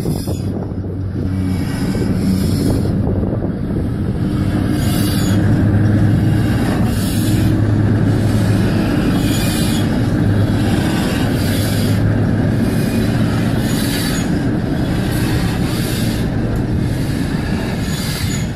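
Steam train, the Flying Scotsman, running along the line: a steady low rumble with a regular beat about once a second.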